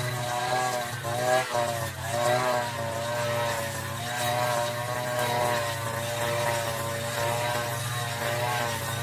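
Petrol brush cutter running at high revs while cutting tall, thick grass, its engine pitch wavering and dipping briefly a few times.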